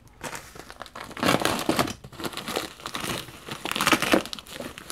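White plastic padded mailer being crumpled and torn open by hand: irregular crinkling and rustling of the plastic, loudest about a second in and again near the end as it tears.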